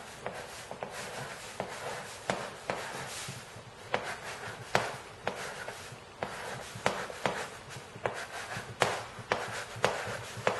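Chalk writing on a chalkboard: irregular sharp taps as the chalk strikes the board, with scratchy rubbing between strokes.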